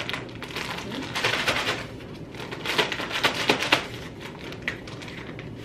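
Plastic bag crinkling as it is handled and pulled open, in two bouts of rustling: one about a second in and a longer one around three seconds in.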